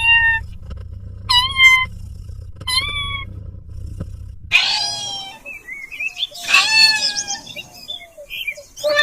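Kittens meowing: three short, high meows, each about a second apart, then from about halfway through a busier run of several overlapping meows.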